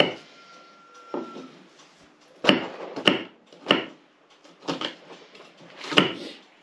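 Kitchen knife chopping onion on a wooden cutting board: a string of sharp, irregularly spaced knocks, most of them in the second half.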